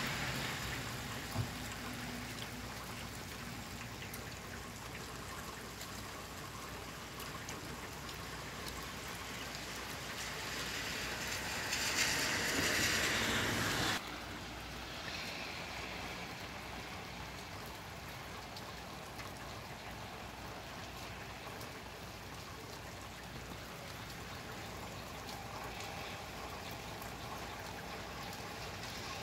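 Steady rain falling outdoors. About ten seconds in, a louder hiss swells up and cuts off suddenly a few seconds later.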